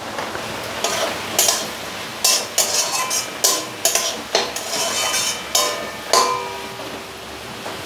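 A spatula stirring and mashing steamed ash gourd in an aluminium kadai, knocking and scraping against the pan so that it briefly rings, about a dozen strokes that stop about six seconds in.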